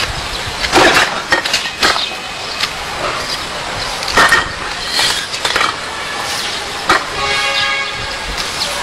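Sharp, irregular knocks of broken red clay bricks against a concrete bench as they are handled and struck, over steady background noise.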